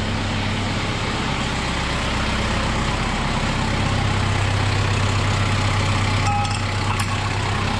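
Kubota M6060 tractor's four-cylinder diesel engine idling steadily with a deep hum that strengthens a little about halfway through. A few light clicks come near the end.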